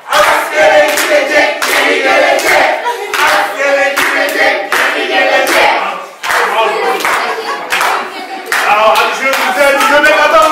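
A group of people singing together to steady rhythmic clapping.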